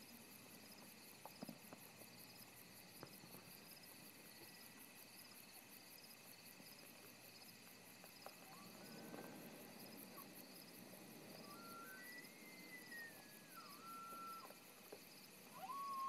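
Distant bull elk bugling: a faint, high, whistled call that rises, holds and then falls away, about twelve seconds in, with a short rising note a few seconds before it. Crickets and other insects chirp steadily in even pulses throughout.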